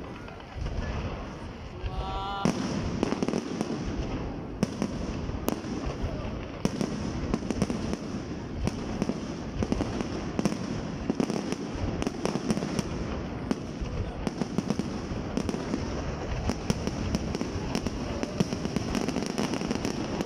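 Fireworks display: a continuous run of sharp bangs and crackling from bursting shells, with a crowd's voices underneath.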